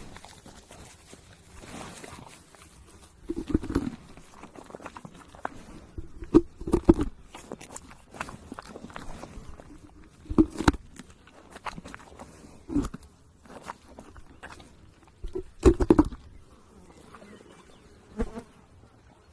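Close-up eating sounds: bites and chewing that come in short clusters of clicks and crackles every few seconds, with quieter mouth noise between.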